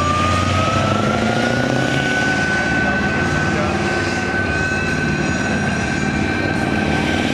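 CV9030 tracked infantry fighting vehicle pivot-turning on its tracks: the diesel engine runs under load with a high whine that rises in pitch over the first two seconds and then holds steady, over the rumble and clatter of the running gear.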